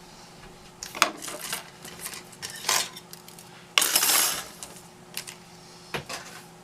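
Craft tools and papers being handled on a tabletop: scattered light clicks and knocks, with a louder half-second rustle about four seconds in.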